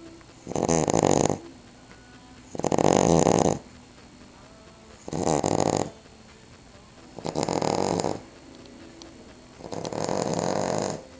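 Cavalier King Charles spaniel snoring: five big snores, each about a second long, coming roughly every two seconds.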